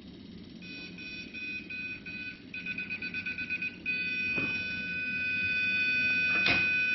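Digimaster injector assembly tester beeping: spaced beeps that quicken into rapid beeps, then become one straight continuous beep about four seconds in, the signal that the Siemens piezo injector has been tightened to the correct calibration. A couple of faint knocks come from the work.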